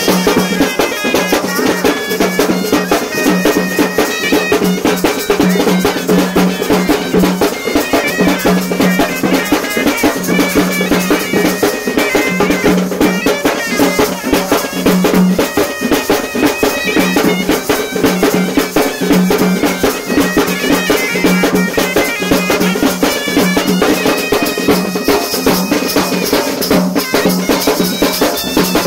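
Loud traditional music: a wind instrument plays a melody over fast, dense drumming.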